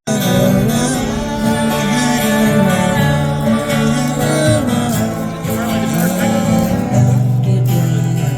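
A song with strummed acoustic guitar and a singing voice, starting abruptly.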